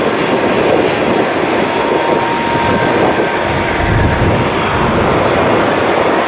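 Boeing 767 freighter's twin jet engines running loud and steady as it rolls along the runway, a constant roar with a faint whine on top.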